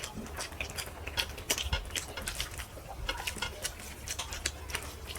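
Chewing and eating sounds of a person eating rice and fried brinjal, many irregular sharp mouth clicks.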